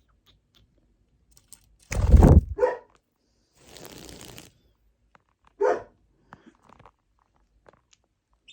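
A dog barking: a loud short bark about two seconds in and another near six seconds in, with a brief hiss between them.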